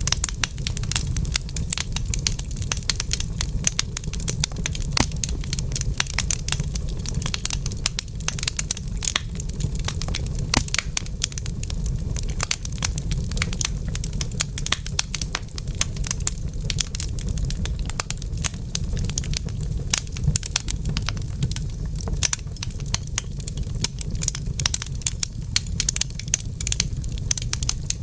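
Wood fire burning in a fireplace, crackling and popping in quick, irregular snaps over a steady low rumble.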